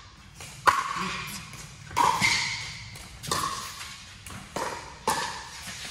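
Pickleball rally: paddles striking the hollow plastic ball in a quick back-and-forth, about eight sharp pops with a short echo in the large hall.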